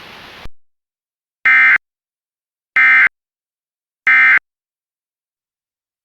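Emergency Alert System end-of-message signal: three identical short bursts of digital SAME data tones, about a second and a quarter apart, marking the end of the alert. A faint hiss cuts off just before them.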